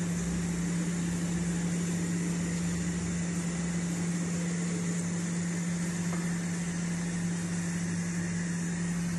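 Steady electric fan hum with a rush of moving air, unchanging throughout.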